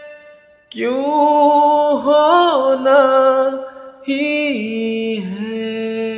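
A man singing a Hindi film song in long, drawn-out held notes that waver and bend in pitch. There is a short break just before a second long held note, about four seconds in.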